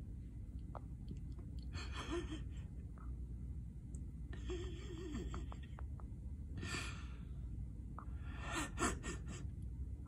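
A person's breathy, wheezing laughter in four short bursts over a steady low rumble.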